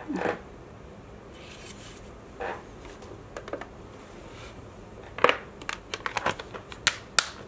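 Plastic rhinestone organizer box being handled and its lid snapped shut: scattered clicks and knocks, then a quick run of sharp plastic clicks and rattles about five seconds in.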